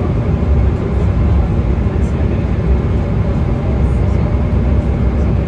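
Jet airliner cabin noise on the landing approach: steady engine and airflow rumble, heavy in the low end, heard from a window seat over the wing.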